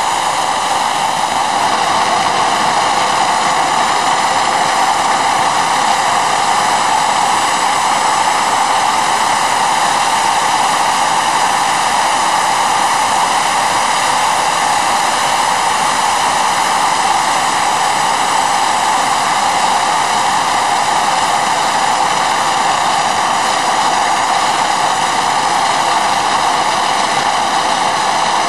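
Homemade turbojet built from a T3/T4 turbocharger with a propane-fired combustor, running steadily: a loud, even rush of air and combustion with a high, multi-toned turbine whine over it.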